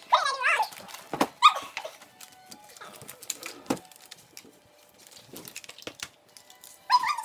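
Christmas wrapping paper rustling and crinkling over a shoe box, with quick clicks and taps from tape and hands. A few short high-pitched whines come in the first second and again near the end.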